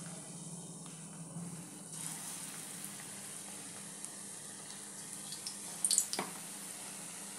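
Batter-coated potato vadas deep-frying in hot oil in a kadhai, a steady sizzle. About six seconds in, the sizzle flares briefly with a few sharp clicks as another battered vada is lowered into the oil on a spoon.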